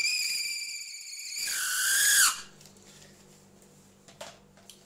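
Cordless drill spinning a countersink deburring bit in the end of a 5/8-inch copper pipe: a loud, high-pitched squeal of the cutter chattering on the copper, falling in pitch and stopping a little over two seconds in. A few faint clicks follow.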